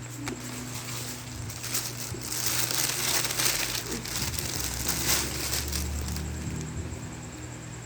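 Close crinkling and crunching from a fried-chicken and rice takeout meal being handled and eaten, densest and loudest from about two to four seconds in, over a steady low hum.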